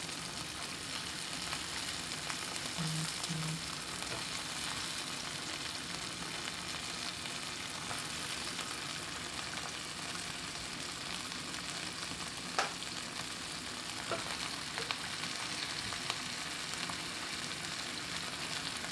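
Yardlong beans and eggplant sautéing in hot oil in a frying pan: a steady sizzle, with a few sharp clicks about two-thirds of the way through.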